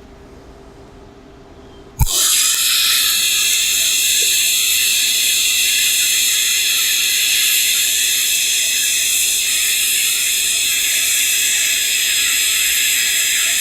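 TIG welding arc from an AHP AlphaTIG 200x, striking with a sharp snap about two seconds in, then burning with a steady, loud hiss.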